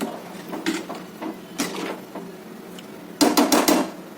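Kitchen utensils knocking against a cooking pot: a few separate knocks, then a quick run of four or five knocks about three seconds in.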